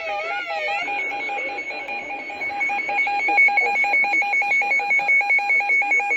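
Electronic alarm tones: a warbling, siren-like tone cuts off about a second in, then a fast-pulsing two-pitch alert tone beeps rapidly and gets louder from about halfway through.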